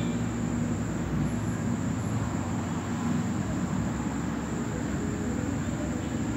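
Steady low rumbling background noise with a faint high steady whine over it, unchanging throughout.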